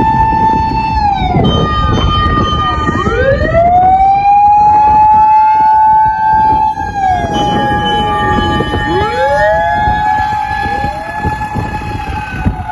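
Several fire engines' motor-driven mechanical sirens wailing together. Each winds up to a steady high pitch, holds it, then falls away, with the rises and falls of the different sirens overlapping. A heavy low rumble of wind and engines lies beneath.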